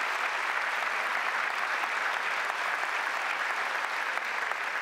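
Large seated audience applauding, a dense and steady sound of many hands clapping.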